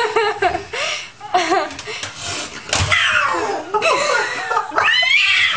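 Hard laughter from people: choppy bursts of laughing, then long high squeals that slide down in pitch.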